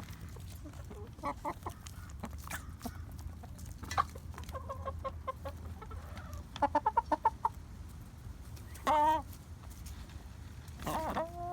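Hen clucking: short clucks, two quick runs of rapid clucks, then two longer drawn-out calls near the end, the last one rising. It is the weird noise made by a hen whose crop is full and squishy in the morning without food, which her owner is trying to diagnose.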